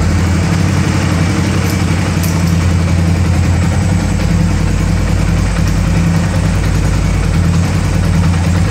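Motorcycle engine running at a steady idle, loud and unchanging.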